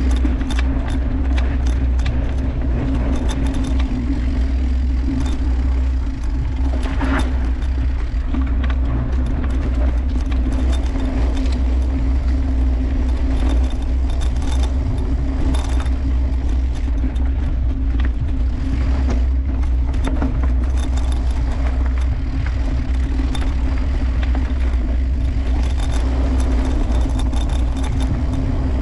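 Mountain bike rolling over a dirt singletrack: steady tyre and ride rumble with frequent light clicks and rattles from the chain and bike parts over bumps.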